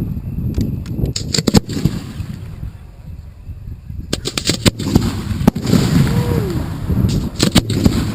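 Fireworks display: shells bursting with sharp bangs and crackles in several quick clusters over a low rumble.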